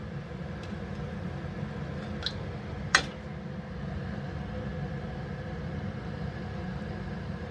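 Dal-batter dumplings gently frying in oil on medium-low heat: a faint, even sizzle over a steady low rumble, with a sharp click about three seconds in and a smaller one just before it.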